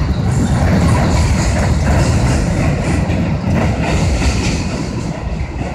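Amtrak Capitol Corridor passenger train rolling past with a steady low rumble.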